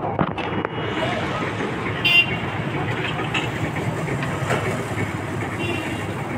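Steady street traffic, with a short horn toot about two seconds in.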